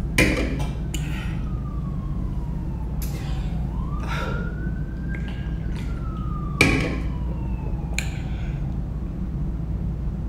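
Emergency-vehicle siren wailing, its pitch rising and falling slowly about twice, over a steady low hum. A few short sharp noises break in, the loudest right at the start and about two-thirds of the way through.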